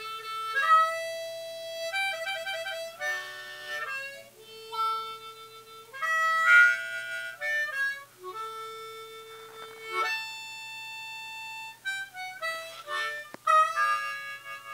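Solo harmonica playing a melody of held single notes, some sliding up into pitch, with a quick flutter of repeated notes about two seconds in.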